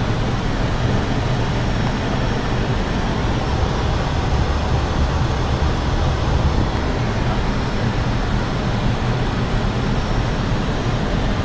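Steady flight-deck noise of an Airbus A320-200 on final approach: an even, unbroken din of airflow and engine noise, heaviest in the low end.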